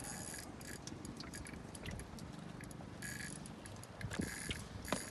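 Shimano Stella 3000HG spinning reel buzzing in several short high-pitched spells, with scattered ticks, as it works against a hooked fish pulling on the line.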